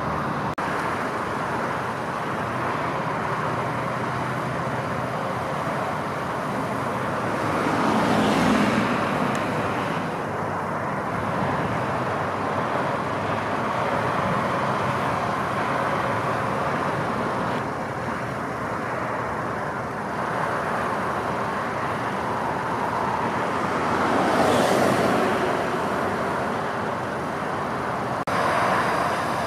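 Steady roadside traffic noise with engines running, and two vehicles passing close by, each swelling and fading, about a third of the way in and again later.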